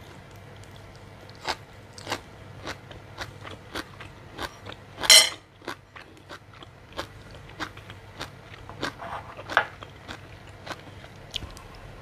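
Close-miked chewing of crisp blanched sea kale stems: repeated crunchy clicks as the stalks are bitten and chewed. A brief, loud rush of noise about five seconds in.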